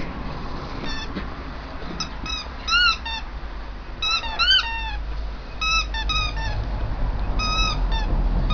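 Young Bearded Collie puppies giving short, high-pitched squeaky yelps and whines during rough play, in about five quick clusters, over a steady low rumble.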